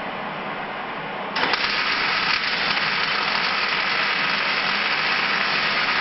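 MIG welding on sheet metal: the arc strikes about a second and a half in and runs steadily for about five seconds before stopping.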